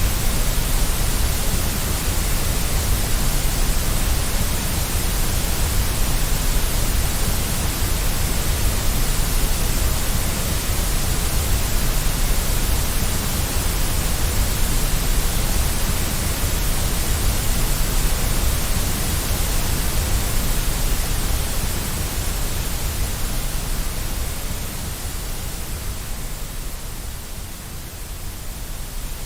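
Steady white noise, an even hiss with a deep rumbling low end, of the kind played to settle a baby to sleep. It dips somewhat quieter near the end.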